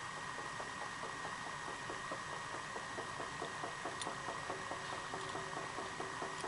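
A rapid, even run of soft knocks, several a second, keeps going over a steady hiss with a thin high tone.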